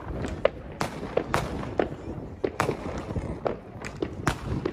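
Fireworks and firecrackers going off: an irregular string of sharp bangs and pops, about three a second.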